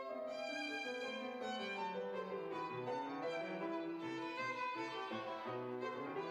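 Violin played with piano accompaniment; right at the start the piano comes in beneath the violin with lower notes that step downward.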